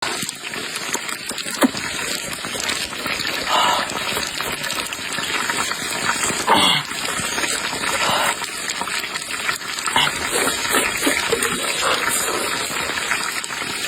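Water gushing steadily from running water while chilies and Sichuan peppercorns are washed.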